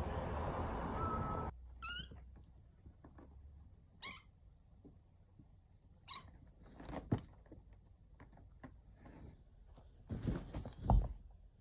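A cat meowing: two high-pitched, wavering mews about two and four seconds in, then a few shorter sounds and low thumps near the end. A steady noise cuts off suddenly about a second and a half in.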